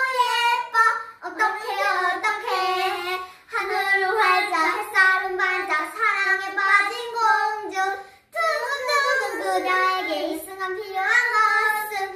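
Young girls singing a song without accompaniment, in phrases broken by short pauses about a second, three and a half and eight seconds in.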